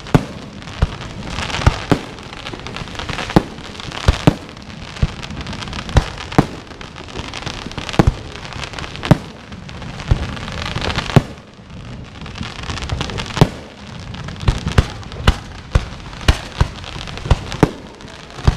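Fireworks display: shells bursting one after another at irregular spacing, about one or two sharp bangs a second, over a steady rushing background. The loudest bang comes about eleven seconds in.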